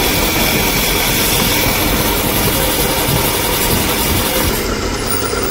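Abrasive grinding wheel grinding the head of a motorcycle engine valve held in a spinning chuck under coolant, a loud, steady hiss over the machine's running hum. The hiss eases a little near the end.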